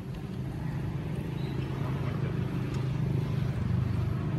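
Low, steady engine hum that grows a little louder about two seconds in.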